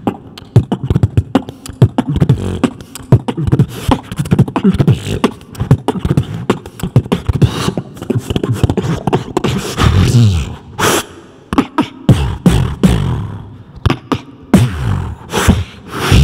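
Human beatboxing into a handheld microphone: rapid drum-like kicks, snares and clicks over sliding bass tones, with a few brief breaks in the rhythm in the second half.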